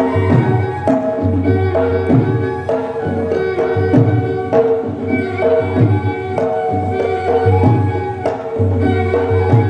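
Music: hand-drum strokes in a steady rhythm over sustained held notes from a melody instrument.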